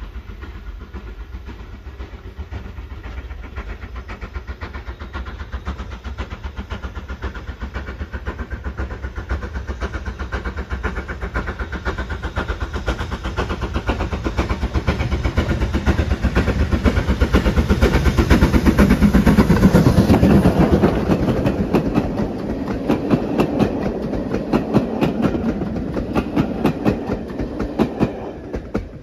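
Steam train coming out of a tunnel and passing close by. It grows louder to a peak about two-thirds of the way through, then its carriages run past with a quick, regular clickety-clack of wheels over rail joints.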